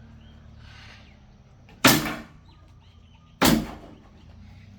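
Two loud bangs about a second and a half apart: a monkey banging a baseball bat.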